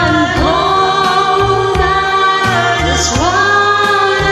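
Singing with long held notes over a karaoke backing track.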